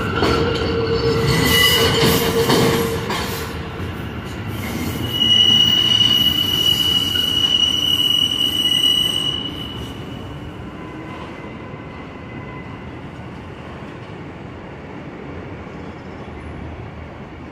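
New York City Subway train's steel wheels squealing loudly against the rails over the running rumble of the train. The high squeal peaks and then dies away about ten seconds in, leaving a softer steady rumble.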